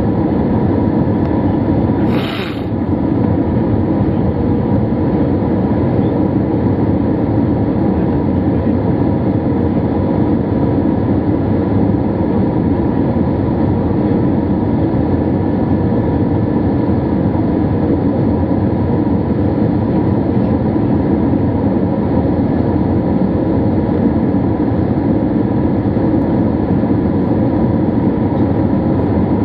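Steady cabin noise of an Airbus A321-200 on final approach at low altitude: engine and airflow noise with a faint steady tone. There is one short click with a brief dip in level about two seconds in.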